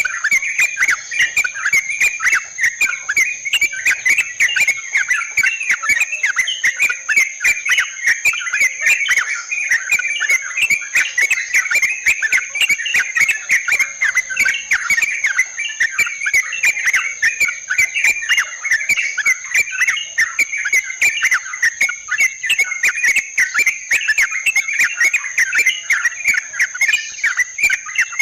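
Yellow-vented bulbuls chattering in a dense, unbroken stream of bubbly calls, the kind of recording played to lure the species, over a steady high insect drone.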